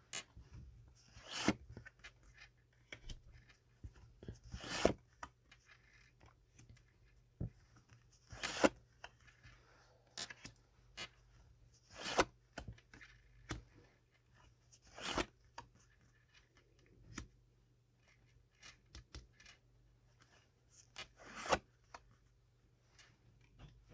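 Tarot cards being handled: a string of short, dry swishes and slides of card stock, some louder than others, as the deck is shuffled and cards are drawn and laid out.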